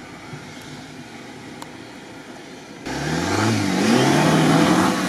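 Jeep Wrangler's engine running at low revs, then about three seconds in revving hard as it powers up a sandy slope, with the hiss of tyres churning sand. The revs rise and fall and ease off near the end.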